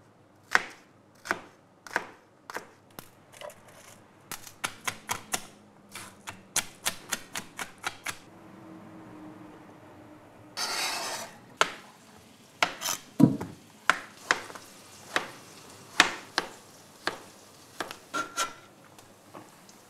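Chef's knife chopping vegetables on a plastic cutting board: separate cuts, then a quick run of strokes, a pause with a short hiss about halfway, then steady slicing again with one dull thump among the cuts.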